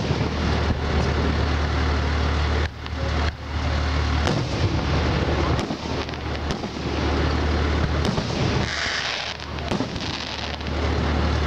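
Aerial firework shells bursting, a series of sharp bangs a second or so apart, with a brief hissing burst in the last few seconds. A steady low rumble runs underneath.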